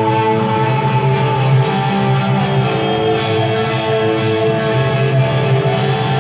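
Electric guitar played along with a live rock band recording, in an instrumental passage of sustained, droning chords and bass with no singing.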